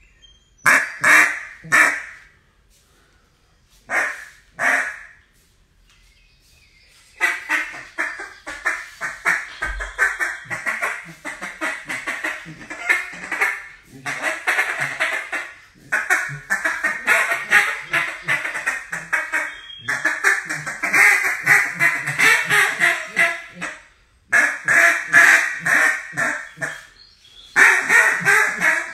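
Duck call being blown to imitate duck quacks: a few single quacks at first, then long strings of fast quacks with short breaks between them.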